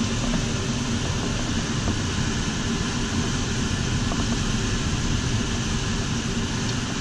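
Steady rush of air streaming over a sailplane's canopy and fuselage in gliding flight, heard inside the cockpit: an even hiss that holds level throughout.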